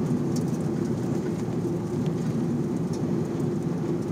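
A steady low mechanical hum from an unseen machine, with faint rustles of a paper flyer being handled.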